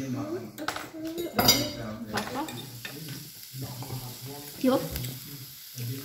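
A hand-twisted pepper mill grinding, a gritty crackling with one sharper crunch about a second and a half in.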